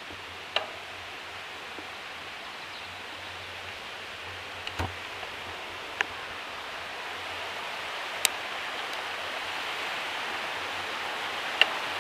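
Rushing river water over small cascades, a steady hiss that grows louder over the last few seconds. A few single sharp clicks or knocks are scattered through it.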